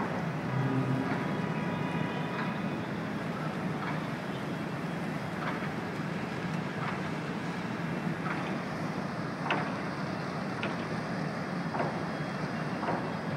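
Passenger ferry's engines running with a steady rumble, with harbour noise and some wind on the microphone. A few faint short sharp sounds come through in the second half.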